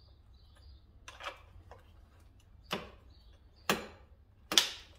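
Combination wrench clacking against the bar nuts and side cover of a Stihl 661 chainsaw while the bar is loosened, four sharp metallic clicks about a second apart, the last ones loudest.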